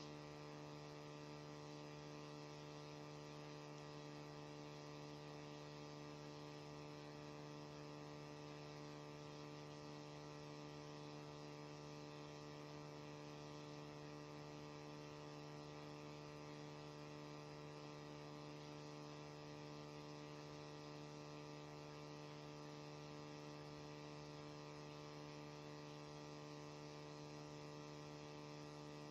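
Faint, steady electrical hum: a low buzz made of several even, unchanging tones, with no other sound standing out.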